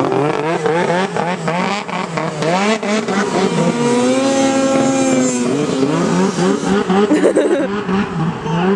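Snowmobile engine revving hard as the sled skims across open water, its pitch rising and falling with the throttle and held high and steady for a couple of seconds in the middle, with the hiss of spray. Near the end the engine pitch drops and turns rough as the sled stops and sinks in the water.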